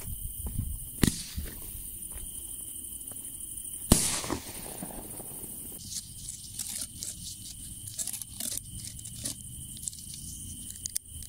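A single firework bang about four seconds in, with a short crackling tail. After it come light clicks and scuffs as a shell's fuse is set into a mortar tube.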